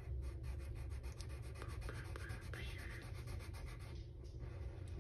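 Pencil scratching back and forth on paper in many short, quick strokes, shading in boxes, over a low steady hum.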